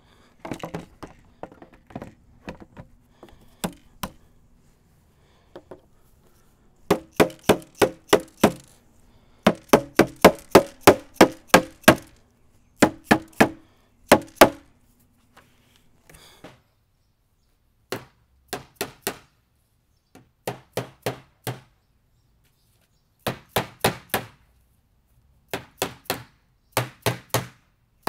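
A hammer striking a plastic above-ground pool step unit while it is being assembled. The strikes come in quick runs of about three or four a second, with short pauses between runs.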